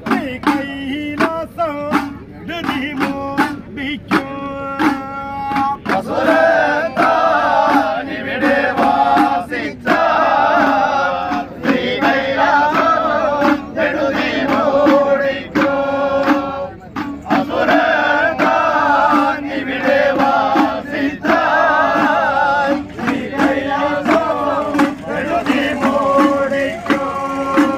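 A group of men singing an Ayyappa devotional bhajan together in phrases, accompanied by small hand-held drums beaten with the palm in a steady rhythm.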